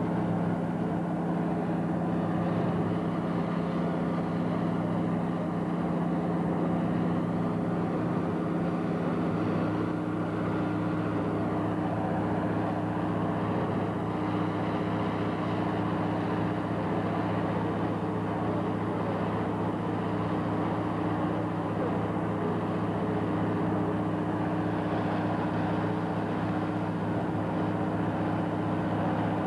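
Heavy crane engine running steadily under load, a continuous drone whose low tone shifts about ten seconds in.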